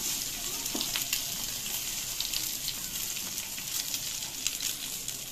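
Shami kababs, some dipped in egg, shallow-frying in oil on a tawa griddle: a steady sizzling hiss dotted with small crackling pops of spattering oil.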